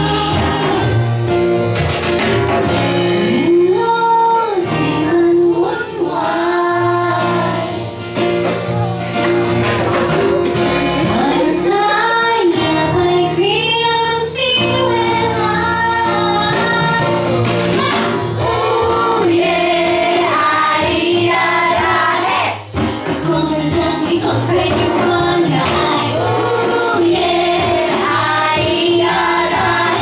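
A woman singing a song live, accompanied by a strummed ukulele and a plucked upright double bass.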